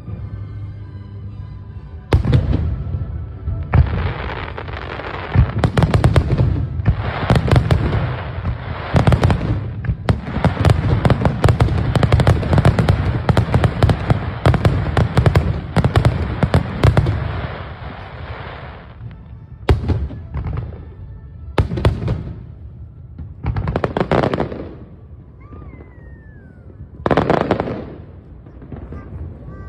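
Wide starmine fireworks barrage: a dense run of shell bursts, booms and crackling starts about two seconds in and goes on for roughly seventeen seconds, followed by a handful of separate bursts. Music is heard before the barrage begins.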